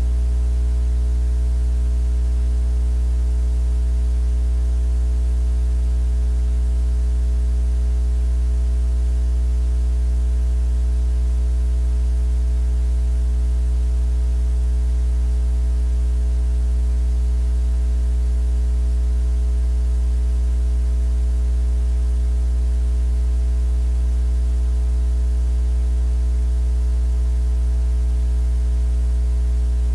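A steady, unchanging low electrical-sounding hum, with a strong deep tone and fainter higher tones stacked above it, under a light hiss.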